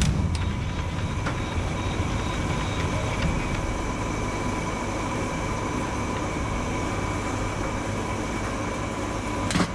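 Steady mechanical drone with a low hum and faint high steady whines, unchanging throughout, and a short sharp noise near the end.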